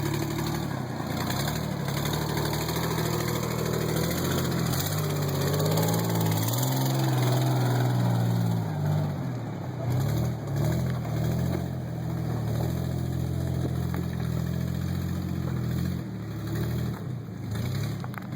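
Off-road vehicle's engine running under varying throttle, its note rising and falling, loudest about a third of the way through.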